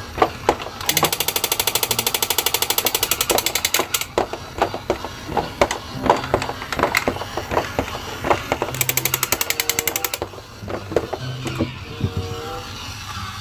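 Battery-operated crawling Hulk soldier toy running: a steady clicking from its crawling mechanism, with two long stretches of very rapid, even rattling, about a second in and again near ten seconds.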